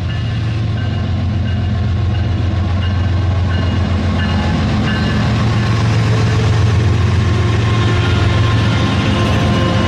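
Rail King battery-powered toy train running along its plastic track toward the listener: a steady low drone that grows louder as it approaches.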